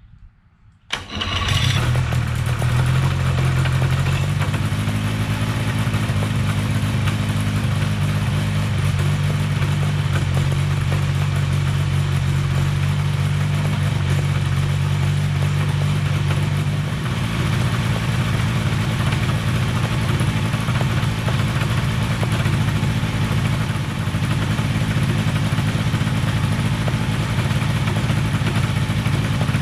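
Quad City Challenger 2 ultralight's engine firing up about a second in on its first engine run, then running steadily with the pusher propeller turning. The engine note drops slightly about seventeen seconds in.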